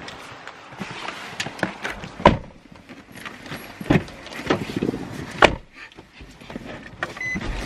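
Getting into a car: a car door opened and shut with several sharp knocks and clicks, the three loudest about two, four and five and a half seconds in.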